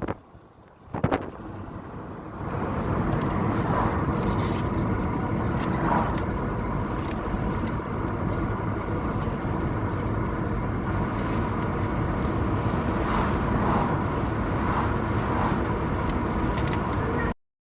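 Steady road and engine noise of a moving car. It starts softer and settles into an even rumble after about two seconds, then cuts off abruptly near the end.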